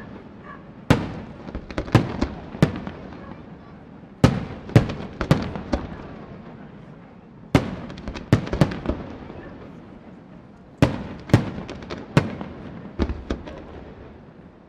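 Aerial fireworks display: shells bursting in clusters of sharp bangs about every three seconds, each bang trailing off in an echo.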